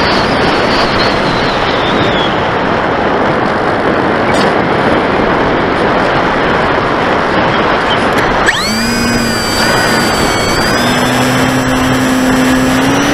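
Loud wind rush over an onboard camera on an electric RC glider in flight. About eight seconds in, the 1150kv brushless motor and 10x7 propeller spin up with a sudden rising whine, which then holds steady.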